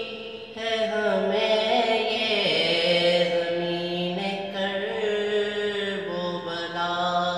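A man singing a manqabat, an Islamic devotional song, solo and unaccompanied. After a short pause for breath at the start he sings long held notes that slide from pitch to pitch.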